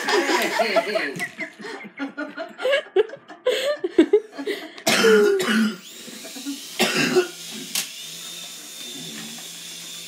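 Laughter and short cough-like bursts of voice, with the faint steady whine of a toy remote-control helicopter's small electric rotor motor behind them in the later seconds.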